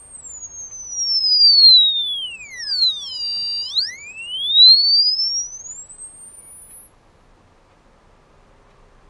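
Small piezo buzzer sounding a pure tone that glides smoothly down from a shrill whistle to a low beep about three and a half seconds in, turning buzzier at the bottom, then glides back up and climbs out of hearing near the end.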